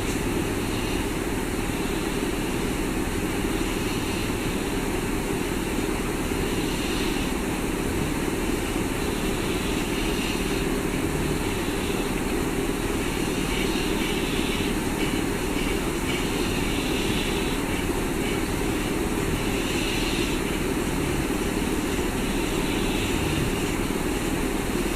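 A steady, unbroken droning noise that holds the same level throughout.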